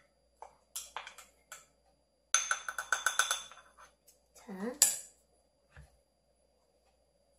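Wooden spoon stirring sauce in a ceramic bowl. There are a few light taps, then a quick run of about ten clinks against the ringing bowl, and a sharp knock about five seconds in.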